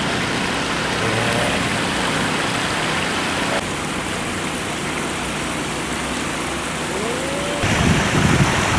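Steady rushing of flowing river water, an even hiss. Near the end, wind buffeting the microphone adds a low rumble.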